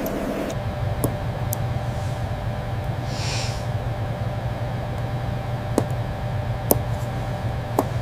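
A steady low hum that sets in about half a second in, with a few sharp light clicks and a brief hiss about three seconds in.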